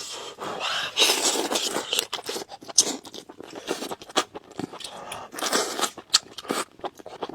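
Close-up eating of salt-baked chicken: biting, chewing and pulling meat off a drumstick, a dense run of sharp wet clicks and smacks, with louder stretches about a second in and again past the middle.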